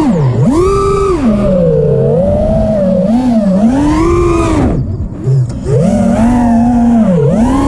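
FPV quadcopter's electric motors whining, the pitch swinging up and down with the throttle. About five seconds in the whine drops away for about half a second, then climbs back.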